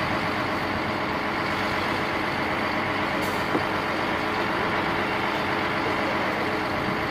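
Mercedes-Benz concrete mixer truck's diesel engine running steadily, with a brief faint hiss about three seconds in.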